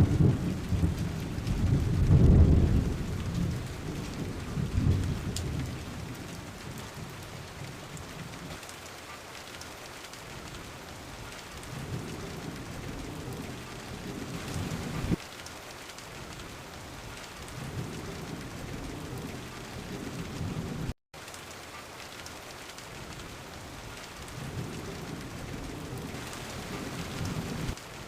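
Steady rain with thunder: a loud rolling rumble over the first few seconds that fades away, then quieter rumbles returning several times. The sound cuts out for an instant about two-thirds of the way through.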